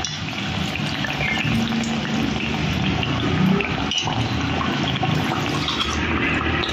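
Besan-battered bottle-gourd slices sizzling in hot oil in an iron kadhai: a steady frying hiss as more pakoras are dropped in.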